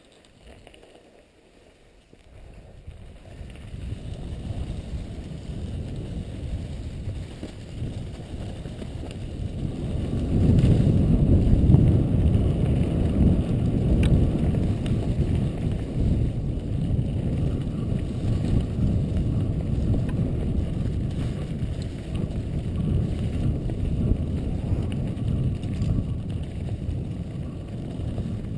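A mountain bike descending a forest trail, heard from a camera on the rider: a low rushing of wind on the microphone mixed with tyres rolling over gravel and dry leaves. It starts about two seconds in, builds, and is loudest a little before halfway.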